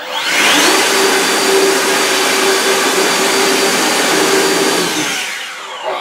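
Leaf blower switched on and spinning up, its whine rising in pitch, then running steadily with a loud rush of air before winding down about five seconds in.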